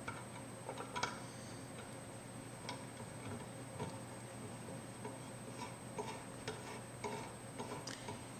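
Light, irregular metal clicks and taps from a triangle stud die being fitted into a hand press stud setting machine, the strongest about a second in.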